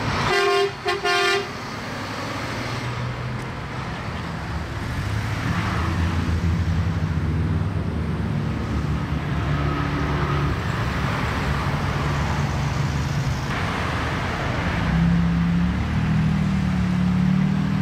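A vehicle horn honks twice in quick succession, then steady road traffic: the engines and tyres of passing cars and trucks.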